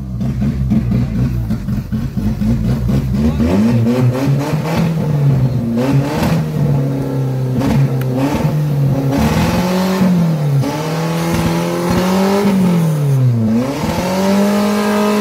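Maruti Gypsy 4x4's engine revved hard again and again, pitch climbing and dropping several times, as it works to climb a loose dirt slope with its wheels spinning.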